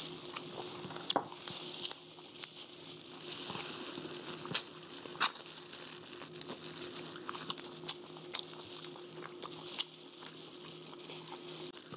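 Two people chewing and eating by hand, with scattered sharp clicks and smacks over a steady low hum.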